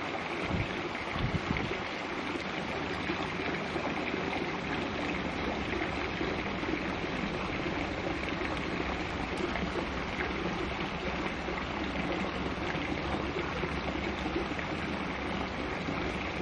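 Steady outdoor rushing noise, like running water or wind, with two brief low wind thumps on the microphone in the first couple of seconds.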